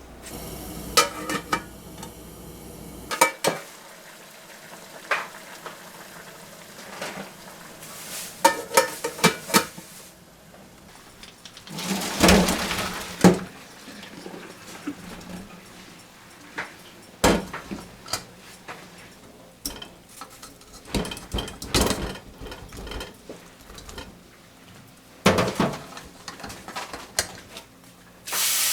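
Kitchenware being handled: dishes, pots and utensils clinking and knocking in scattered, irregular clatters, some with a short metallic or glassy ring.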